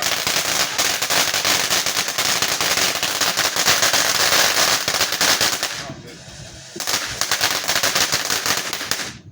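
Consumer fireworks crackling: a dense run of rapid pops for about six seconds, a short lull, then more crackling that cuts off suddenly near the end.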